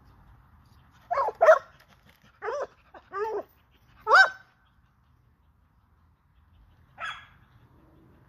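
American pit bull terrier puppy barking in play: a run of short, high-pitched barks, the loudest about four seconds in, then a fainter one near the end.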